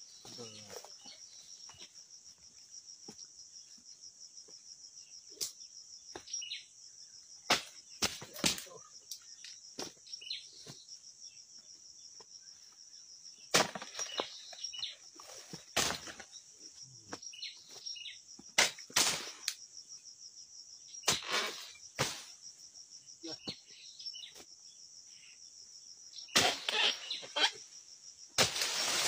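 Steady high buzz of insects, with about a dozen sharp chopping knocks at irregular intervals as a harvester's long-handled chisel hacks at oil palm fronds and fruit bunch stalks.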